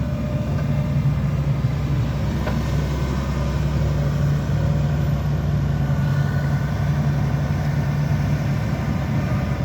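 Excavator engine running steadily with a constant low hum.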